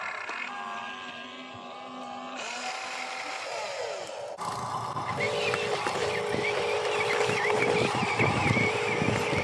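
Small electric motors of an RC excavator whining steadily as the arm and tracks are driven, the set of tones shifting about two and a half seconds in as the movement changes. About four and a half seconds in the sound cuts abruptly to a louder, rougher mix with a steady hum and low rumble.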